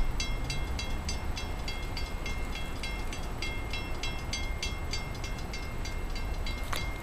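Railroad grade-crossing bell ringing in quick, even strokes, about three a second, over a steady low rumble, with one sharp knock near the end.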